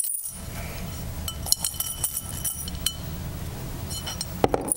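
Metal dog tags clinking against each other and a clear plastic container as a hand rummages through them to draw one; the shaking stops right at the start. Scattered sharp ringing clinks, then a duller knock near the end.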